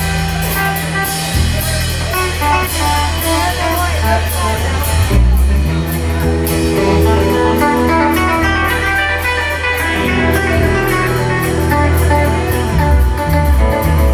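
Rockabilly band playing live: electric guitar lines over bass and a drum kit.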